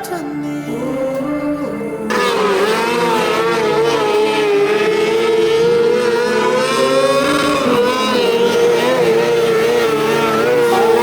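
Music gives way about two seconds in to dirt-track race car engines running at speed, their pitch wavering up and down continuously as the cars lap the oval.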